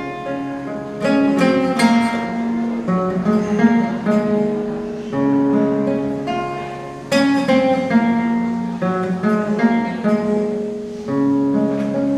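Nylon-string classical guitar played alone, without singing: strummed and plucked chords that ring and fade, with sharp strums about a second in, near two seconds and near seven seconds.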